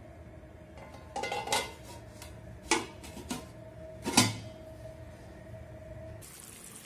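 Stainless steel pot lid clattering as it is set onto a cooking pan: several metallic clinks, the loudest a little after four seconds, with the lid ringing on in a steady tone that fades out near the end, over a low steady hum.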